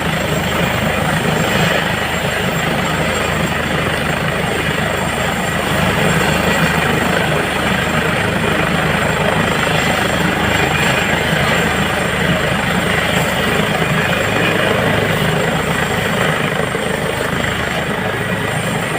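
Helicopter's rotor and turbine engine running loud and steady, with a rapid low rotor beat.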